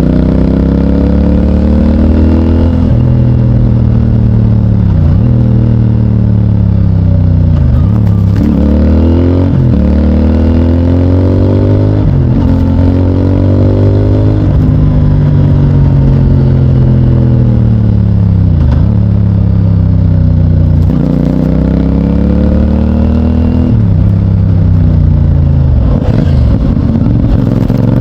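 2024 CFMOTO 450NK's parallel-twin engine through its stock exhaust, pulling under load with the pitch climbing and falling as the rider works the throttle and gears. It dips sharply and picks up again about a dozen times.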